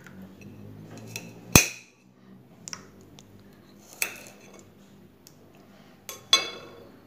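A kitchen knife clinking against a ceramic plate a few separate times as garlic cloves are picked up; the sharpest click comes about a second and a half in, and one near the end rings briefly.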